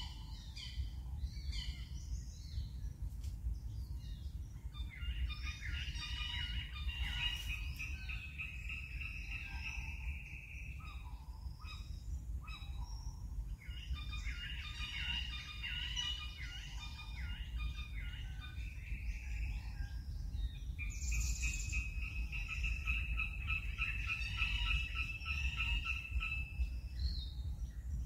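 Forest ambience: several birds chirping and calling, with a few long trills of rapid notes, the longest in the second half, over a steady low rumble.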